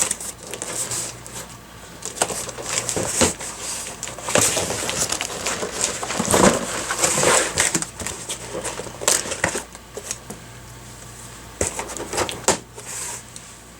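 Packaging and parts being handled while unboxing: plastic and cardboard rustling and crinkling, with irregular clicks and knocks.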